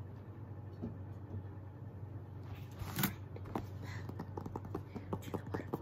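A hardback book handled close to the microphone: a scrape about three seconds in, then a quick run of light clicks and taps.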